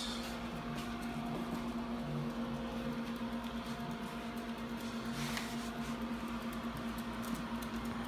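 Steady low electrical hum of a running compact glass-door display fridge (Monster CTM-026-3E), with a brief rustle about five seconds in.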